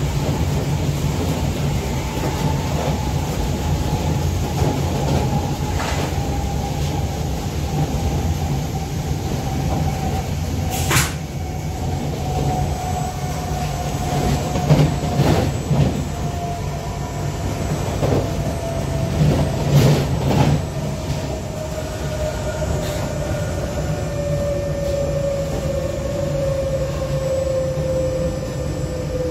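Inside a Z20500 double-deck electric train's motor car running at speed: a steady low rumble from wheels and motors, with a traction whine that slowly falls in pitch. Several sharp clacks from the running gear come in the middle stretch, the loudest around halfway.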